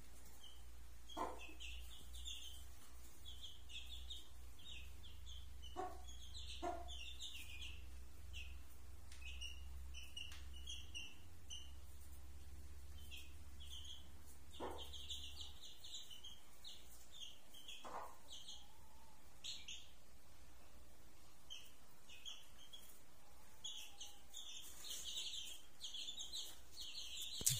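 Chicks peeping: many short, high cheeps scattered through, with a few brief soft knocks.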